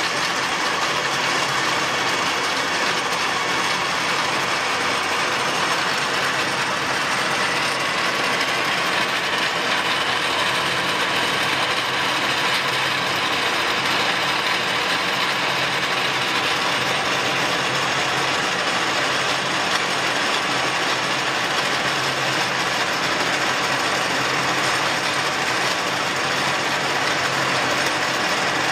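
VDF Heidenreich & Harbeck 18 RO centre lathe running steadily with no load, its spindle and gearing turning with a constant mechanical whir.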